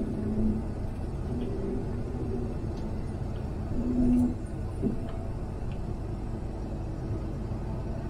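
Combine running, heard from inside its cab as it drives slowly across the yard: a steady low rumble that swells briefly about four seconds in.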